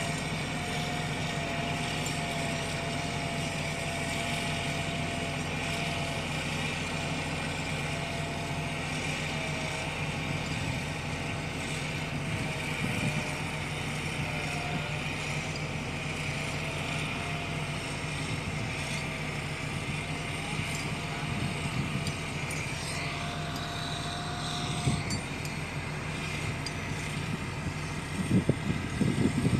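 Motor grader's diesel engine running steadily under load, with a faint wavering whine over it. A few louder thumps come near the end.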